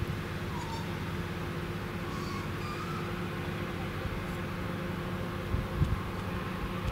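RA1 railbus's diesel engine idling at a standstill, a steady low hum with a few steady tones. Faint voices carry over it, and a few low thumps come about five and a half seconds in.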